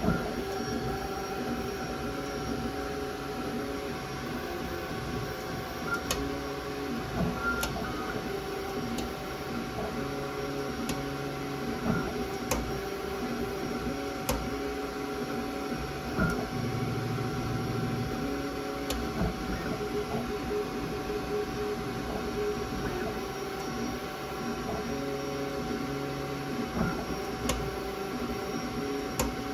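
Creality K1 3D printer running with a steady hum, broken by sharp clicks every second or two. The clicking is abnormal and constant on a nearly new printer with under 15 hours of printing.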